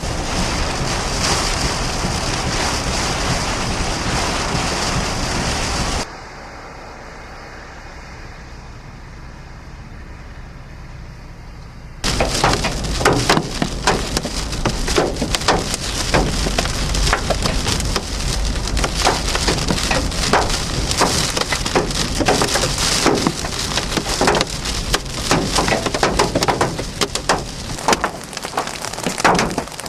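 Hail and heavy rain pelting a vehicle. After a quieter stretch in the middle, many hard, sharp hailstone strikes crack against it in quick succession.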